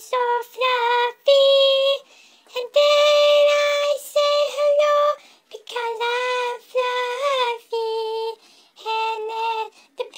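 A high-pitched singing voice for a cartoon kitten, unaccompanied, in short held notes with brief silent gaps between phrases.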